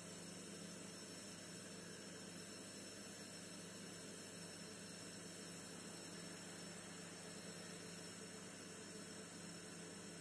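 Faint steady low hum with a light hiss and no distinct sounds: background noise.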